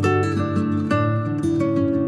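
Background music: a melody of plucked notes, each starting sharply and dying away.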